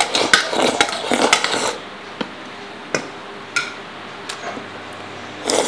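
Chopsticks scraping and clicking against a rice bowl as food is shoveled from it into the mouth, then a few separate clinks of chopsticks on dishes.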